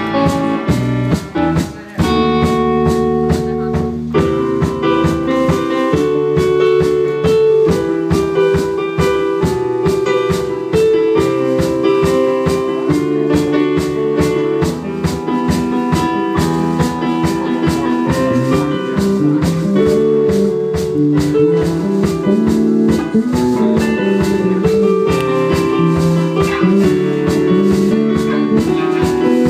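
Instrumental music with electric guitar and a drum kit playing a steady beat.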